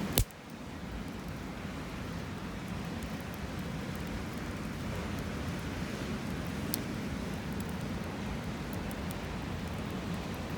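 Steady wind and surf noise on a seashore, with a sharp click right at the start and a few faint ticks later on.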